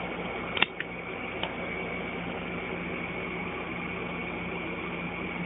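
Steady hiss with a faint high whine and a low hum, broken about half a second in by one sharp click and, within the next second, two faint ticks from handling the open Blu-ray steelbook case.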